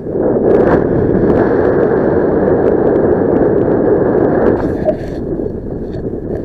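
Wind buffeting the camera microphone in flight: a loud, rough rush of air that starts suddenly and eases about four and a half seconds in, with scattered small clicks and knocks.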